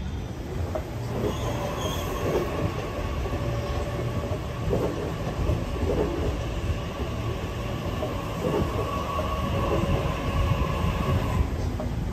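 Double-deck electric suburban train running in alongside the platform: a steady low rumble with wheels clacking over rail joints, and a steady whine that cuts off shortly before the end.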